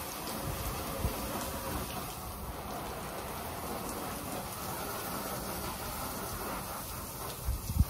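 Pressure-washer spray: a steady stream of water splattering onto the patio surfaces, with a couple of low thumps near the end.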